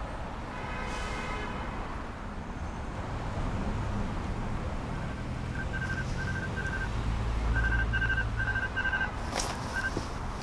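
Electronic house-arrest ankle monitor beeping: short high beeps, about three a second, in two runs from about halfway in, over the low rumble of city traffic.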